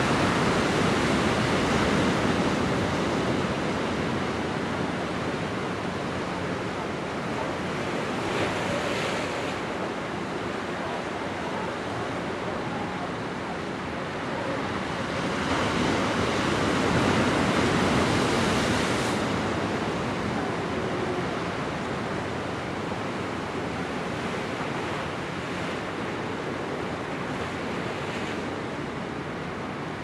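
Surf on a sandy beach: waves breaking and washing up the sand in a steady rush that swells and eases, loudest near the start and again about halfway through.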